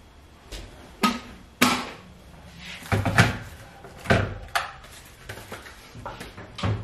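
A series of sharp knocks and clatters from hard objects being handled and set down, about eight in all, the loudest about a second and a half in and about three seconds in.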